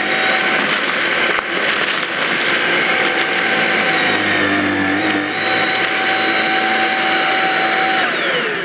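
Shark Rocket Duo Clean corded stick vacuum running on carpet: a steady high motor whine with a rushing airflow, and cereal pieces clattering as they are sucked up through the floor head. Near the end the motor is switched off and its whine winds down in a falling pitch.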